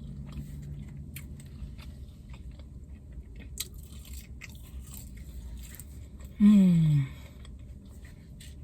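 Close-miked chewing of a bacon Quarter Pounder burger, with many small wet clicks and smacks. About six and a half seconds in, a loud, short hum of enjoyment that falls in pitch.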